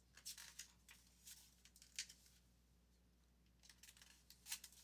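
Pages of a picture book being turned by hand: faint paper rustles and swishes, a few short ones in the first two seconds and a cluster near the end.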